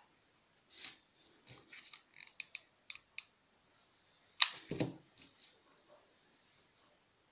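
Small clicks and ticks of hands handling ribbon petals and flower stamens, then about four and a half seconds in a sharp knock with a duller thud, a hot glue gun set down on the table after gluing.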